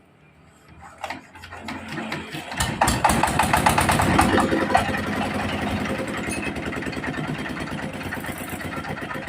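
Diesel engine of a mobile corn sheller being started: a click about a second in, a short spell of cranking, then it catches near three seconds, runs up loud and settles into a steady, even beat.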